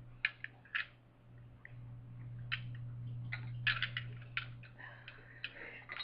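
A few light clicks and taps at uneven intervals, with some soft rustling, over a steady low hum.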